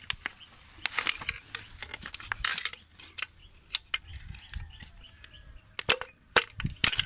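Sharp, irregular metallic clicks and clinks of a socket wrench and extension working on the connecting-rod cap bolts inside an open crankcase, loosening them to pull out a piston. The loudest clicks come near the end.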